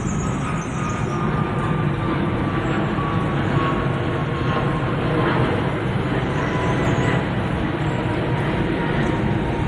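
Steady loud vehicle rumble, with a thin whine sliding slowly down in pitch throughout.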